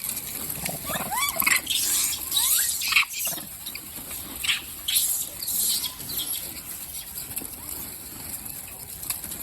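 A monkey's short, high squeaks, a few rising chirps in the first three seconds, over rustling and handling noise.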